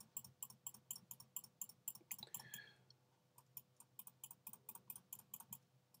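Faint rapid clicking of computer keys, several clicks a second, with a short pause about three seconds in.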